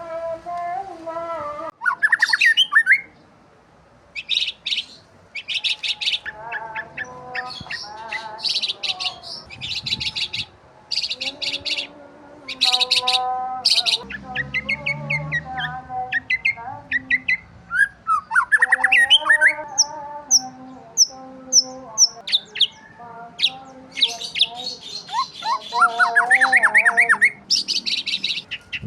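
Several birds chirping and calling together: quick high chirps and trills mixed with harsher pitched squawks, and a run of five or so short, high, evenly spaced whistles about two-thirds of the way in.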